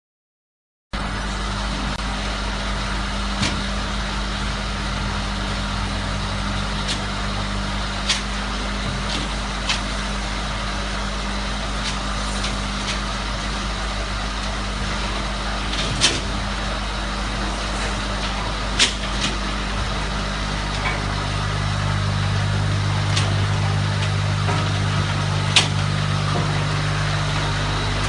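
Oil-palm fruit-bunch thresher machine running steadily with a low engine-like hum, with a few sharp knocks now and then. The low hum grows louder about two-thirds of the way through.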